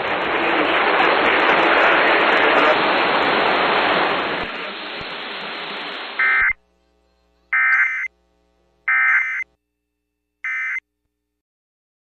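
Loud AM radio hiss and static for about six seconds, then cut off. After that come four short warbling data bursts: the Emergency Alert System end-of-message code that closes the flash flood warning.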